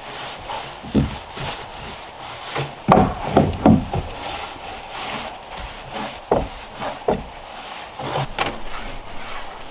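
Irregular thuds and scrapes of a long-handled hand tool striking and working sandy soil at the base of a timber wall, with a quick cluster of strikes about three seconds in.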